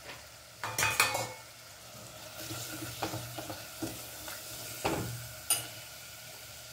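Ground spices frying in hot oil in a steel pressure cooker, stirred with a silicone spatula: a faint sizzle with a few short scrapes and knocks of the spatula against the pot, the loudest about a second in.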